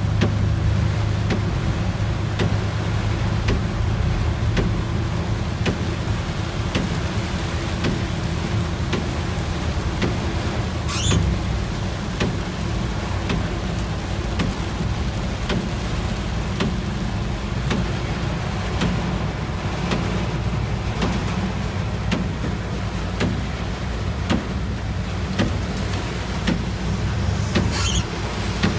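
Heavy rain pelting a moving vehicle's roof and windshield, heard from inside the cab over a steady low rumble of engine and tyres on the wet road. Two brief sharp sounds stand out, one about midway and one near the end.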